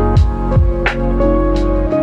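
Background music: a mellow chillhop track with held instrument notes over a steady drum beat.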